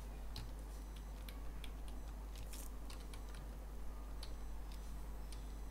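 Computer keyboard keystrokes: isolated clicks, about two a second at an uneven pace.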